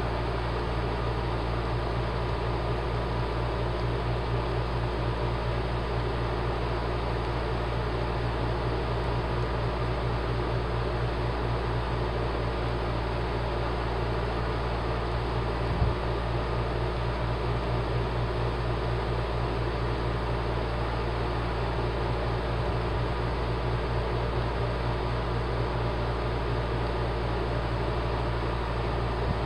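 Model railroad diesel locomotives running along the track, a steady whir and hum that stays even throughout, with a single click about sixteen seconds in.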